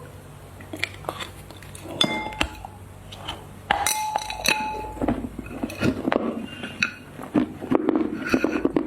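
A hard object clinks against a glass or ceramic dish, ringing briefly twice, then a rapid run of crisp cracks and crunches from chocolate being broken and eaten.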